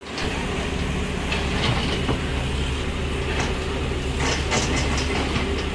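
Backhoe loader's diesel engine running steadily, with scattered clanks.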